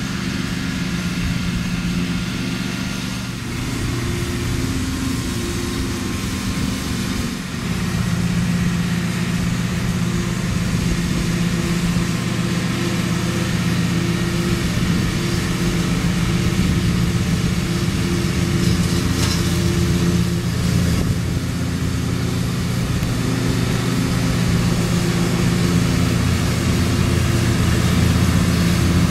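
Riding lawn mower engine running steadily while mowing grass, a constant drone with a brief dip about seven seconds in.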